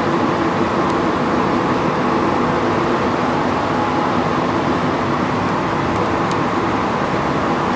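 Inside a Montréal Métro AZUR rubber-tyred train running through a tunnel: a steady, even rumble of tyres and running gear with a constant low hum underneath.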